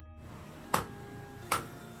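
Two sharp metal-on-metal hammer strikes, less than a second apart, over a faint steady ringing tone.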